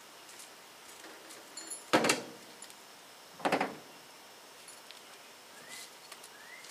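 Two knocks about a second and a half apart, the second lower and duller.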